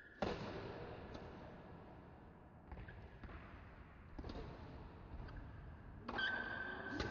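Badminton rally: rackets striking the shuttlecock, a sharp overhead hit about a quarter-second in (the loudest), then five more hits at uneven intervals, one about every second. A steady high tone comes in about six seconds in.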